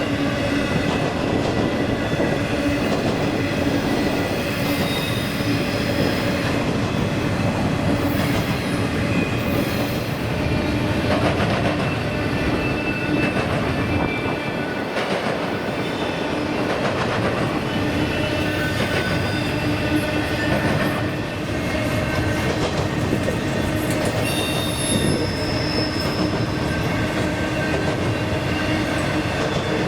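Freight train rolling past steadily, its wheels clattering over rail crossing diamonds. High-pitched wheel squeals come and go.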